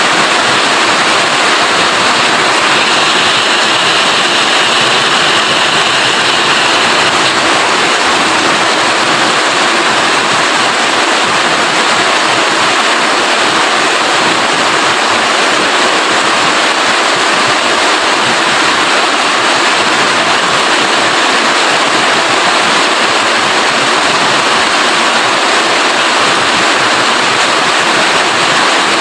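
Steady, heavy rain: a loud, even hiss of falling water that does not let up.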